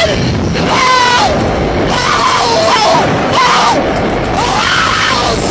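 People screaming on a slingshot ride: a string of long screams that rise and fall, one after another, over wind buffeting the microphone.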